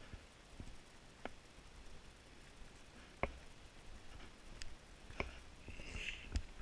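Scattered light clicks and taps at irregular intervals, a second or two apart, from a handheld camera carried along a dirt forest trail: footfalls and handling knocks on the camera.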